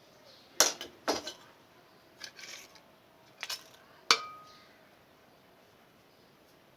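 Kitchenware clinking and knocking: about five separate sharp knocks of dishes and utensils in the first four seconds, the last one leaving a short metallic ring.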